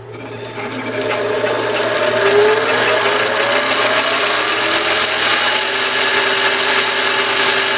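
ENCO 7" x 10" mini lathe with variable-speed drive, in low gear, spinning up in forward: its whine rises in pitch and grows louder over the first few seconds, then runs steadily at about 1,100 RPM.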